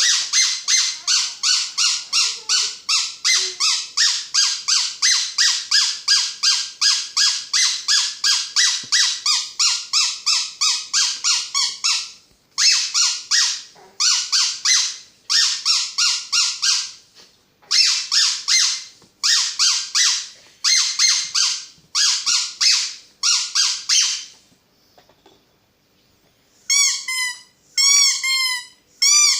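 Squeaky toy squeezed over and over, about three to four squeaks a second, first in one long run and then in shorter runs broken by brief pauses. After a lull near the end come slower squeaks that bend in pitch.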